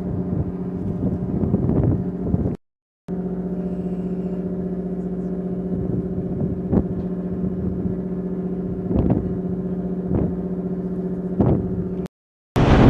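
Steady engine or machinery hum with a few short knocks. It cuts out briefly twice, about two and a half seconds in and near the end.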